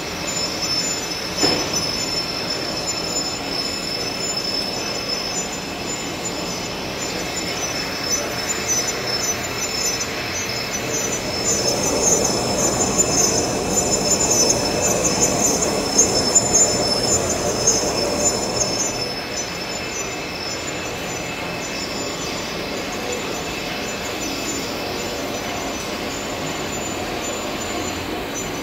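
Large engine lathe facing a steel disc: the cutting tool grinds steadily against the spinning workpiece with a high, steady squeal over the top. The cut grows louder for several seconds in the middle and then settles, with one short knock near the start.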